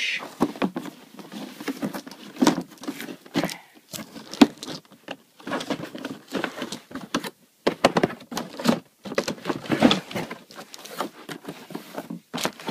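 Cardboard toy box being handled and opened: irregular scraping, tapping and rustling of cardboard and packaging, with many short clicks.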